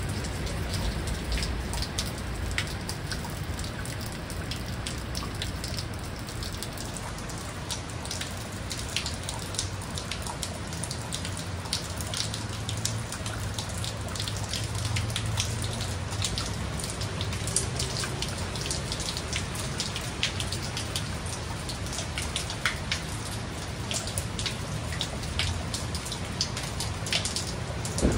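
Heavy downpour: a steady hiss of rain with many sharp ticks of drops landing close by, over a low rumble.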